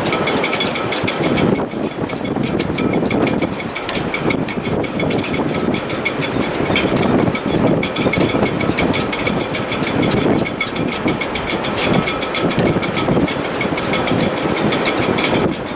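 Strong wind in a sailboat's shrouds and rigging in heavy weather: a continuous rushing roar that swells and eases with the gusts, with faint thin steady whistling tones above it.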